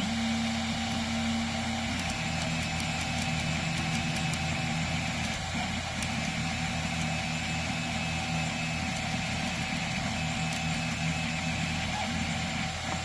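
Tevo Tarantula 3D printer running a print: its stepper motors hum in low tones that jump to new pitches as the print head changes moves, over the steady whir of the hotend cooling fan.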